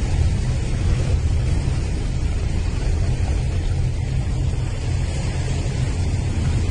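Steady wind noise rumbling on the microphone aboard a boat at sea, with no distinct events.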